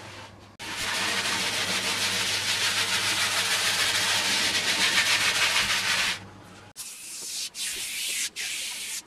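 Foam cleaner being scrubbed by hand into the textured vinyl tolex of an amp cabinet, a steady rasping rub for about five seconds. After a short pause, an aerosol can of foam cleaner sprays in several short hissing bursts.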